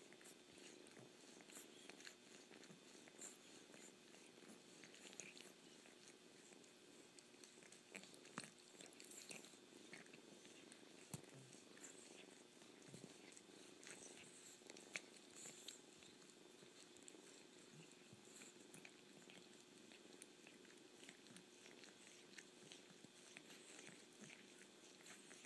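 Faint, steady cat purring with many soft, wet licking and slurping clicks as an adult cat grooms a kitten with its tongue.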